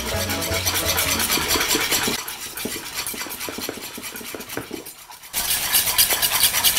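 Wire whisk beating béchamel sauce in a nonstick pan as milk is worked into the roux: a quick run of metal scraping and clicking strokes against the pan, quieter in the middle and stronger from about five seconds in.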